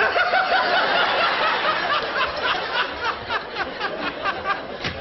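A man laughing loudly and helplessly, the laugh breaking into rapid rhythmic bursts of about three a second in the second half.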